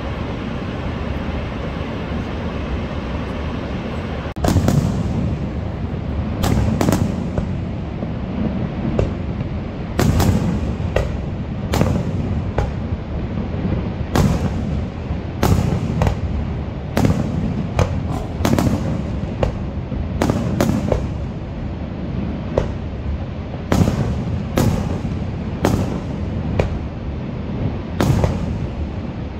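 Steady roar of the waterfall, then from about four seconds in a long string of sharp fireworks booms, often two or three close together, each trailing off in an echo.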